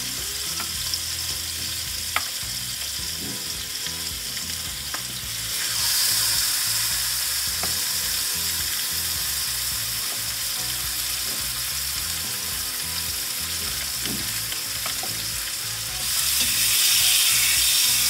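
Marinated chicken pieces sizzling in hot olive oil in a non-stick pan as they are laid in. The sizzle steps up louder about six seconds in and again near the end, with a few light clicks.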